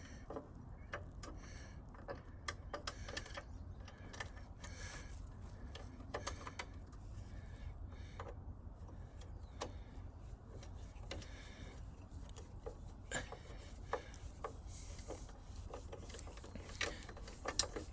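Metal wrench and hardware clicking and clinking in irregular, scattered taps as a backing nut is threaded onto a torque-arm bolt on a bike's rear dropout. A low steady hum sits underneath.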